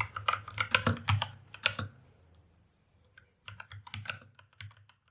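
Typing on a MAGEGEE MK-BOX 65% mechanical keyboard with red linear switches: a quick run of keystrokes, a pause about two seconds in, then typing resumes more softly.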